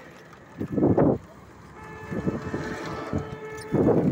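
Street traffic noise heard from a moving vehicle, with two louder rushes, about a second in and near the end, and a steady pitched hum in between.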